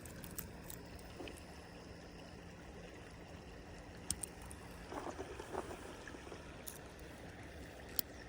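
Steady faint rush of flowing river water, with a few sharp clicks and a brief rustle about five seconds in.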